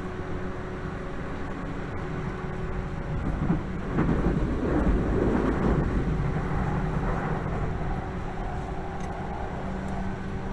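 Tokyu 8500 series electric train running at speed, heard inside the carriage: a steady low hum from the traction motors over wheel-on-rail rumble. About three and a half seconds in, the rumble grows louder and rougher for a couple of seconds before settling back.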